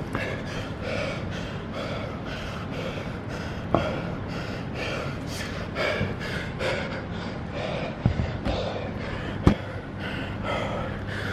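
A man panting hard, out of breath after an all-out workout: rapid, heavy gasping breaths, with a few sharp knocks of handling in between.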